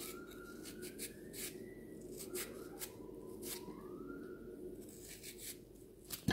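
Small kitchen knife slicing an onion on a ceramic plate: irregular sharp clicks as the blade cuts through and taps the plate. Two faint rising wails sound in the background.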